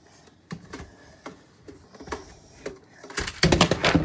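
A few light clicks, then a louder clattering rattle about three and a half seconds in, as of small hardware being picked up and handled.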